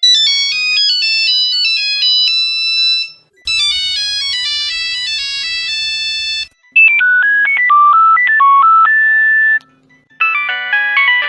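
Old Nokia mobile phone ringtones played one after another: four short electronic melodies of stepped single notes, each about three seconds long, with brief silent gaps between them.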